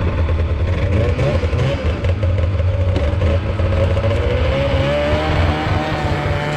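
Snowmobile engine running, its pitch climbing gradually in the second half as it speeds up.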